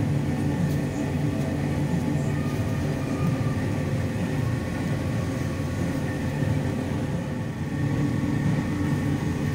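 Steady low mechanical hum of kitchen machinery running, with a few constant tones held throughout.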